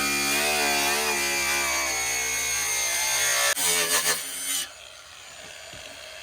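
Bauer 20V brushless cordless angle grinder with a cut-off disc cutting through a sheet-metal car fender, its motor pitch wavering and sagging under load. About three and a half seconds in it stutters, then stops about a second later.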